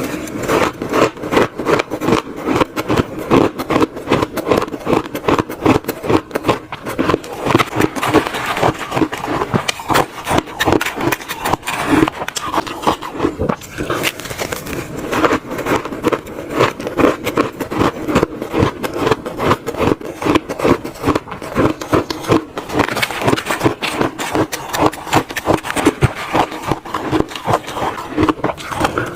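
Bites of frozen shaved ice being crunched in the mouth, close to the microphone, in a continuous run of crisp crunches, several a second.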